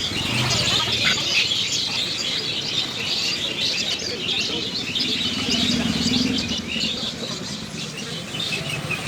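Many small birds chirping busily at once, a continuous chatter of short high chirps, with low, indistinct voices underneath.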